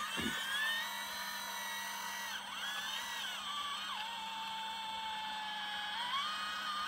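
Scale RC hydraulic excavator's pump whining, its pitch stepping down and back up several times as the boom, arm and bucket move.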